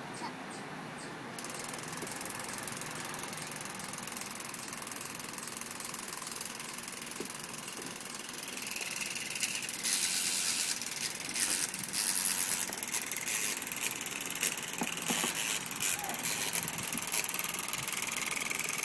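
A small battery-powered toy's motor and gears running with a rattling, ratchet-like clicking. It starts about a second and a half in and gets louder about nine seconds in.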